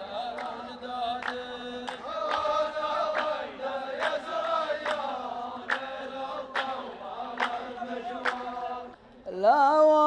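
A chorus of men chanting a poetry refrain together in long held notes, clapping hands in a slow, even beat a little under a second apart. Near the end the chant breaks off and a single louder male voice starts singing the next verse.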